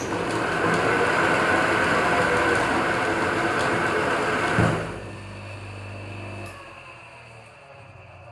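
Small metal lathe running with its chuck spinning. Just under five seconds in there is a knock and the machine noise drops to a low hum as the lathe winds down, fading further about a second and a half later.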